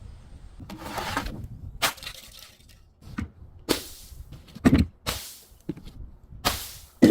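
Brittle objects being crushed and broken: a series of separate sharp cracks and crunches, about eight in all, the loudest nearly five seconds in. A loud, sustained breaking begins right at the end.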